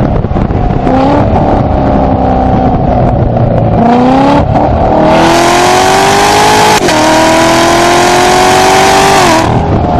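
Chevrolet Corvette V8 heard from inside the cabin, accelerating hard through the gears. The engine's pitch climbs and drops sharply at each upshift, about a second in, around four seconds and near seven seconds, and it is loudest in the last pull before the driver lifts off near the end and the pitch falls.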